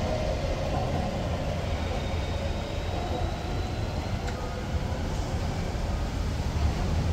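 Canada Line SkyTrain electric train running along the elevated guideway, its hum and a faint high whine fading as it moves away, over a steady low rumble of street traffic.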